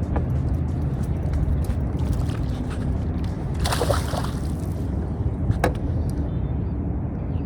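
Water sloshing and splashing beside a fishing boat over a steady low rumble, with a short splash about four seconds in.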